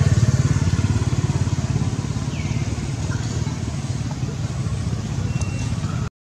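A small engine running steadily with a fast low pulse, slowly growing a little quieter, with two brief high chirps over it. The sound cuts out suddenly just before the end.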